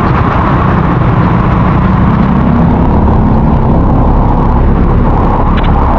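Loud, steady rush of road noise and rain, with a vehicle engine running underneath, picked up by a DJI Action 4's built-in microphone with no casing while moving through traffic.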